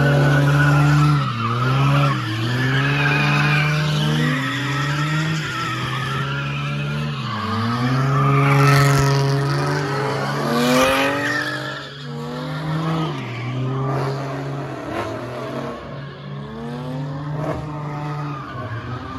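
A car engine held at high revs while its spinning tyres squeal and skid as the car slides. The revs drop briefly every few seconds and climb back.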